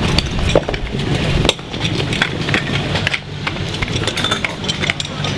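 Clatter of short clicks and knocks as hard suction hoses and their metal couplings are joined to a portable fire pump. A low rumble runs under it and drops off about one and a half seconds in.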